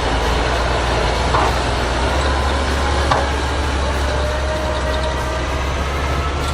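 Heavy potato-harvesting machinery running steadily: a deep engine drone under a dense wash of mechanical noise, with two brief knocks about one and a half and three seconds in.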